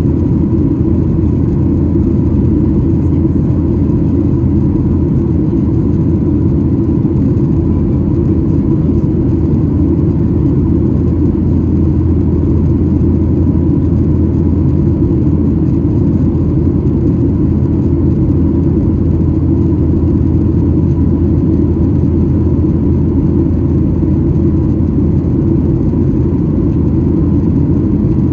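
Steady cabin noise of a Boeing 737-800 in flight, heard from inside the cabin: a loud, unchanging low drone of the CFM56-7B engines and airflow, with a faint steady whine above it.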